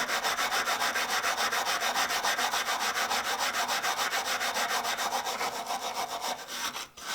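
Rapid back-and-forth scrubbing on an old steel adjustable wrench, about six strokes a second, cleaning off gunk and dirt that a soap bath has loosened. The scrubbing stops briefly near the end.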